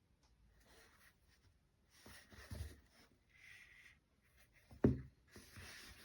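Faint rustling and scraping of objects being handled in short spells, with one dull thump about five seconds in.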